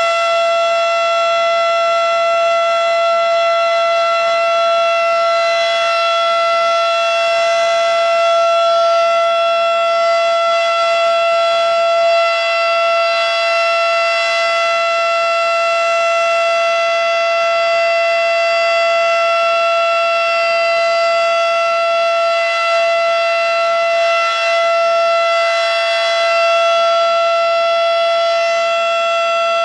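Model 5 outdoor warning siren sounding a loud, steady tone held at one pitch during its routine scheduled test.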